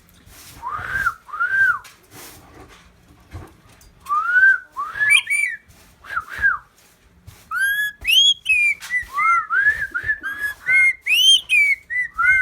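Pet talking bird whistling: short arched whistled notes, a few at first, then coming thick and fast from about halfway.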